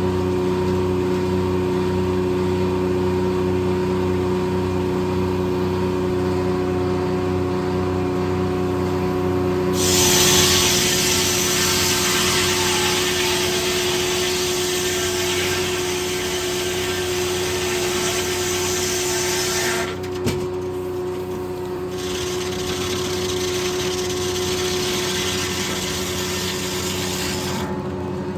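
A Corley circle sawmill running on its engine at a steady speed. About a third of the way in, the circular blade starts cutting through a log and cuts for about ten seconds. It lets up briefly with a knock, then cuts again until shortly before the end.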